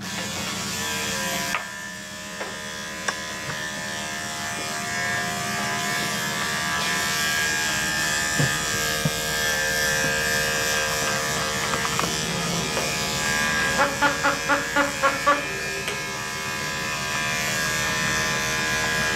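Electric dog-grooming clippers running steadily, shearing the dog's coat. About two-thirds through comes a quick run of about seven short pulses, the loudest sounds here.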